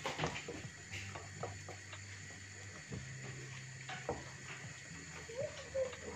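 Quiet kitchen background: a low steady hum with a few faint clicks and taps scattered through it.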